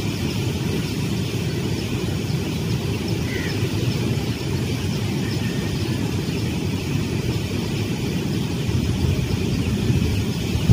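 Steady low rumbling outdoor background noise, even throughout, with no distinct events.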